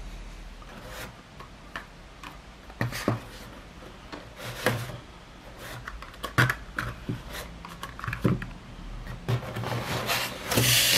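Small cardboard boxes being slid out of a larger cardboard box and set down on a wooden table: cardboard rubbing and scraping with scattered light knocks, and a louder cardboard rustle near the end.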